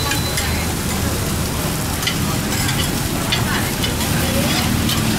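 Greens sizzling in a hot wok as they are stir-fried, with a metal ladle scraping and clinking against the wok again and again.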